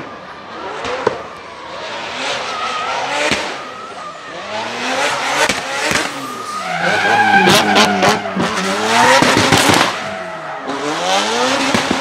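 Twin-turbo four-rotor rotary engine of a Nissan Silvia S15 revving hard on a fly-by, its note climbing and dropping again and again with throttle and gear changes. Sharp exhaust cracks and pops cluster in the loudest stretch past the middle, with tyre squeal as the car slides.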